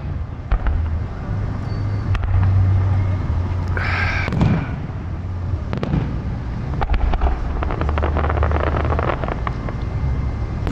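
Aerial fireworks shells bursting in quick succession: deep booms under a rapid crackle of popping stars. A brief high-pitched, whistle-like sound stands out about four seconds in.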